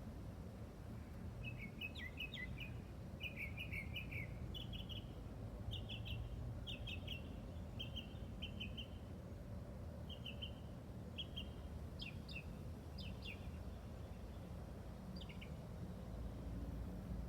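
A songbird chirping in short, high, repeated phrases about once a second, stopping a couple of seconds before the end, over a steady low background rumble.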